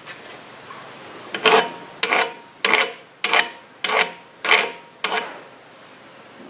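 Hand file rasping across the edge of a spoon-metal arrowhead held in a wooden vise: seven short strokes, nearly two a second, starting about a second and a half in and stopping about five seconds in.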